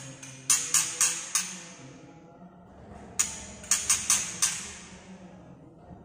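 White-rumped shama giving its sharp clicking 'tạch' call, two quick runs of four to six clicks: about half a second in and again about three seconds in. It is the call of an excited, fired-up male.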